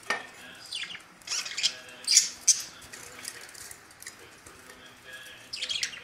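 Budgerigars chirping: short, sharp, high calls, some dropping in pitch, coming in a cluster about one to two and a half seconds in and again near the end.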